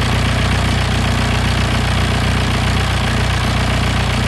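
Freshly rebuilt VW Passat B4 four-cylinder turbodiesel engine running steadily at idle, firing on all four cylinders just after its first start.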